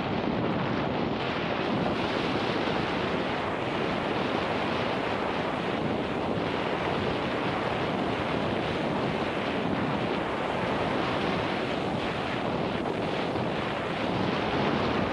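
Steady rush of wind on an action camera's microphone while riding fast down a dirt singletrack trail, mixed with the rolling noise of tyres on the trail.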